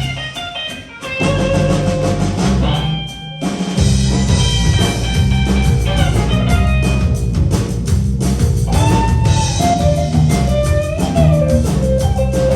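Live blues band playing an instrumental passage with electric guitar, bass and drums. The band nearly stops for a moment just after the start, and a single held guitar note carries a short break around three seconds in before the full band comes back in.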